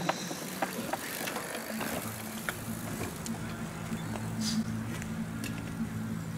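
Bicycles in a race going by, with scattered light clicks and ticks over a steady low mechanical hum.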